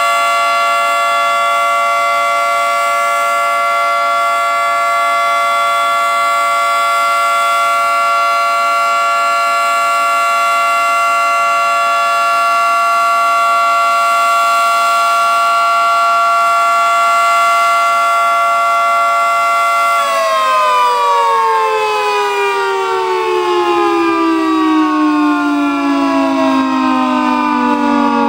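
Federal Signal 2T22A two-tone, 22-port outdoor warning siren sounding its steady two-note alert chord. About twenty seconds in it cuts out and winds down, its pitch falling steadily.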